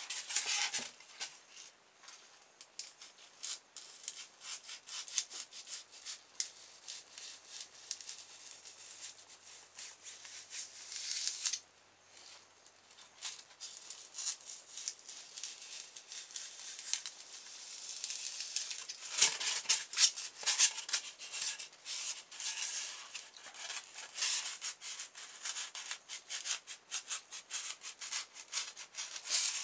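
Sharp knife blade cutting and scraping through polystyrene foam: uneven runs of short, high scratchy strokes, loudest a little past the middle.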